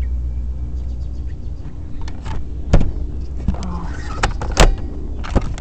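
Spring-powered airsoft FAMAS rifle being cocked and fired: a handful of sharp snaps, the loudest about three seconds and four and a half seconds in, with some handling rustle between them.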